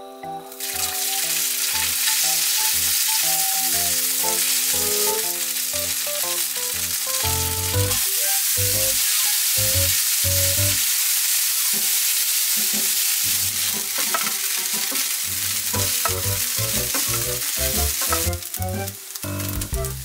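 Food sizzling in a hot oiled frying pan, starting about half a second in as chopped dumplings go into the pan. Kimchi fried rice then keeps sizzling as it is stir-fried with a spatula, over light background music. The sizzle eases near the end.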